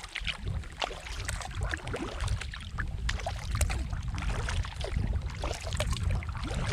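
A kayak being paddled: irregular splashes and drips of water from the paddle, over a low wind rumble on the microphone.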